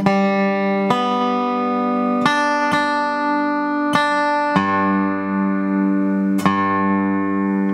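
A spider-bridge resonator guitar (an RQ Jones, just overhauled with a new spider) being picked flat on the lap: a slow run of about seven picked notes and chords at varying pitches, each ringing on into the next.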